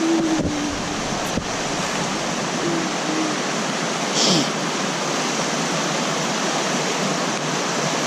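Rushing mountain creek, a steady rush of water, with a couple of faint knocks near the start and a brief high-pitched sound about four seconds in.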